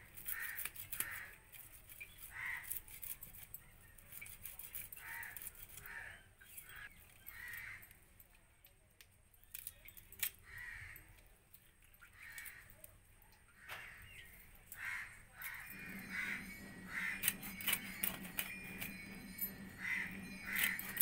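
Crows cawing again and again, over quick scraping clicks as fish scales are rasped off small fish against a bonti blade. A steady low hum starts about three quarters of the way through.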